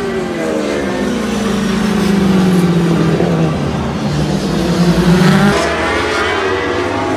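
Racing superbikes' engines at high revs as the bikes pass on the circuit, several engines overlapping. The pitch glides up and down, with a sudden drop about five and a half seconds in.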